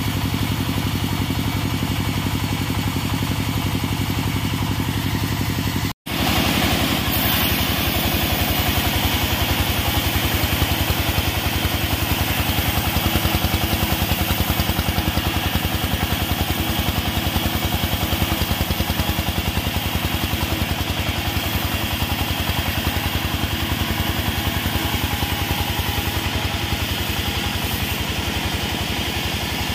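Stationary engine driving a log sawmill, running steadily with a fast, even beat. It cuts out for an instant about six seconds in, then runs on with a brighter hiss on top while a log is pushed through the saw.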